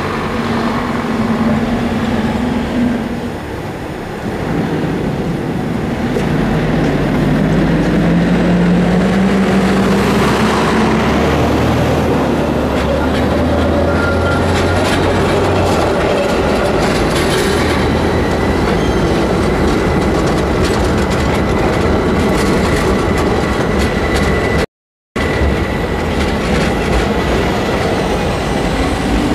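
City buses and a tram passing through a street crossing: a vehicle's drive note rises as it pulls away, then the tram rolls by on the rails amid steady traffic noise, with a thin steady high whine through the second half. The sound drops out briefly near the end.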